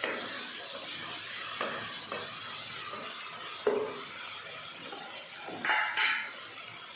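Chopped small onions and tomatoes sizzling in sesame oil in a pan, with a spoon scraping and knocking against the pan a few times.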